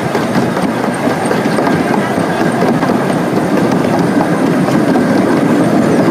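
Steady running noise of a passenger train rolling along the track, heard from inside an open-sided passenger car.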